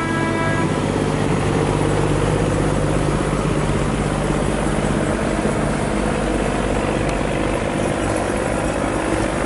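A river barge's diesel engine running steadily, a deep, even drone close by.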